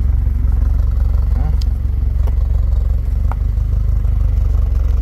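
Toyota Corolla 1.8 four-cylinder engine (1ZZ-FE) idling roughly, heard from the exhaust end as a loud, uneven low pulsing. The engine is unstable and shaking from a misfire detected on cylinder 1.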